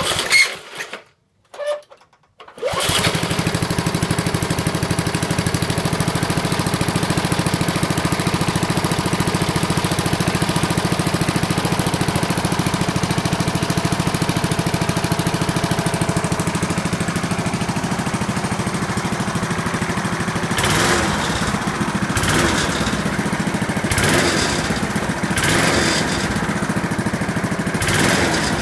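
1984 3.5 HP Briggs & Stratton single-cylinder lawn mower engine, cold, pull-started: a couple of short pulls, then it catches about three seconds in and runs steadily. Near the end it runs unevenly, with dips and bursts. It is running on months-old gas that has turned yellow.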